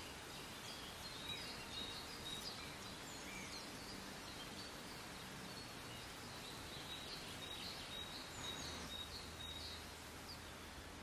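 Forest ambience: several birds calling in short chirps and whistles, some in quick runs of repeated notes, over a faint, steady background hiss.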